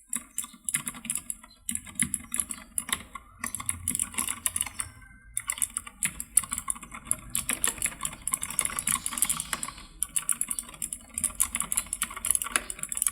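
Typing test on a Vortex Series VX87 mechanical keyboard with clicky Otemu Blue switches: rapid, dense key clicks in runs broken by brief pauses, one near five seconds in and another near ten seconds in.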